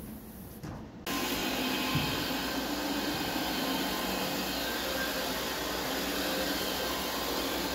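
Counter-rotating brush carpet machine running with a steady motor-and-brush noise, which cuts in abruptly about a second in after a quieter start. There is a brief knock about two seconds in.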